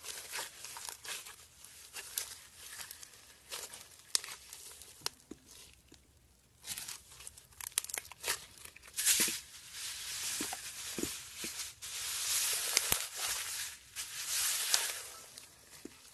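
Small white foam beads crackling and popping as green slime is squeezed and kneaded into a bowl of them to make floam. The crackling is thinner about six seconds in and densest and loudest in the second half.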